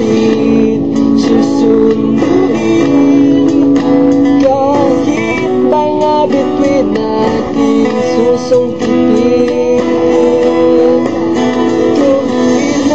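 Acoustic guitar playing strummed chords with a melody line moving above them, an instrumental passage of a slow love song.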